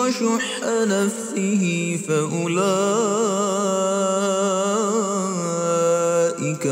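A reciter chanting a Quranic verse in Arabic in the melodic recitation style, drawing out long, wavering held notes.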